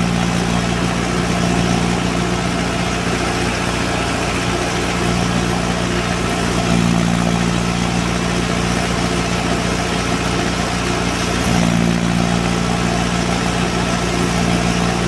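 Mahindra Arjun 555 diesel tractor driving a Hamidi wheat thresher, engine and threshing drum running steadily under load. Its low hum fades and swells a few times as the thresher is fed.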